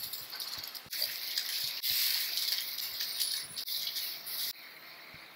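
A large pot of water at a rolling boil, hissing and bubbling as handfuls of soaked basmati rice are dropped in to parboil. The bubbling drops off sharply about four and a half seconds in.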